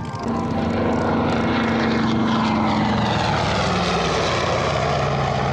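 Piston engine of a WWII propeller fighter running as the aircraft rolls past along the runway, its note falling steadily.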